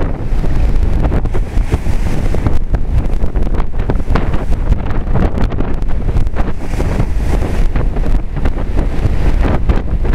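Strong storm wind buffeting the microphone in loud, constant gusts, with surf from storm-driven waves underneath.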